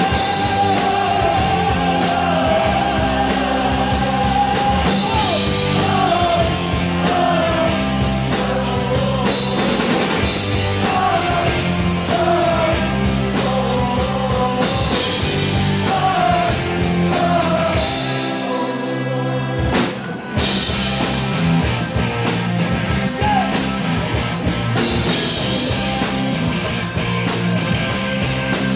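Live rock band playing: a male singer holds a long note, then sings phrases over drums, bass and electric guitar. About two-thirds of the way through, the drums and bass drop out for a couple of seconds, the music breaks off for an instant, and then the full band comes back in.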